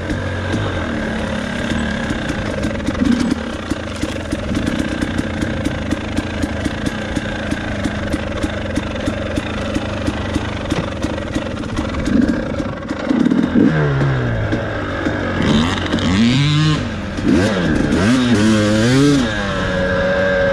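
Dirt bike engine running at low, fairly steady revs on a trail ride, with frequent clicks and clatter. From about two-thirds of the way through, the revs rise and fall over and over as the throttle is worked.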